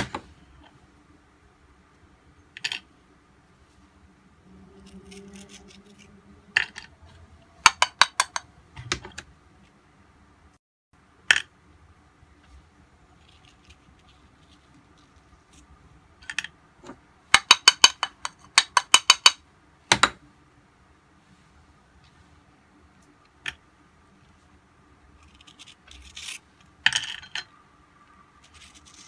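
A metal kitchen knife clicking and scraping against a plate and Oreo cookies as the cream filling is scraped off: scattered sharp clicks, with quick runs of taps about a quarter of the way in and again past halfway.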